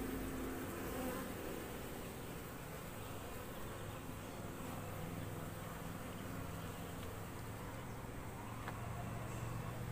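Asian honey bees (Apis cerana) buzzing in a steady low hum around an opened hive box.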